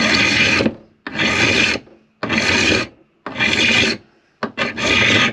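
Hand file rasping in long strokes across a washer clamped in a bench vice, about one stroke a second, five strokes, each a loud scrape with a short pause between. The washer is being filed to relieve it slightly so it clears the roves and seats flush for the skin fitting.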